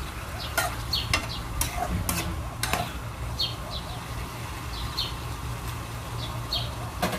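Chicken pieces sizzling as they sear in an aluminium pan, with a metal spoon scraping and knocking against the pan a few times in the first three seconds.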